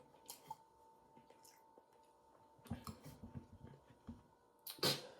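Quiet room with faint scattered clicks and small rustling noises, and one short louder noise near the end.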